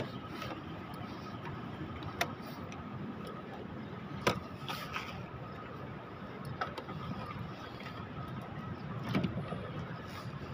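Steady background noise with a faint high hum and a few sharp clicks and knocks scattered through it.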